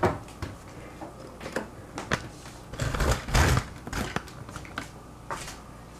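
Irregular light knocks and clicks of things being handled on a kitchen counter, with a louder cluster of knocks and rustling about three seconds in.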